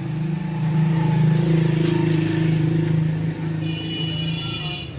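An engine running with a steady low drone, swelling louder about a second in and easing off after about three seconds. A brief high-pitched tone sounds near the end.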